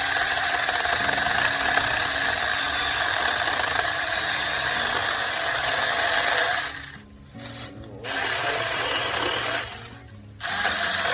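Saker mini cordless electric chainsaw, a 4-inch bar on a 20-volt battery, running and cutting through a 3-inch limb of dried cherry hardwood with a steady motor whine. It stops about two-thirds of the way in, then runs again in two shorter spells with a brief pause between.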